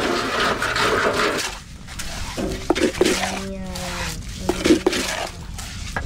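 Concrete mix rushing and scraping out of a tipped wheelbarrow. After a short lull, a run of sharp metal clinks and knocks as the mix is worked into a steel block mould with a trowel.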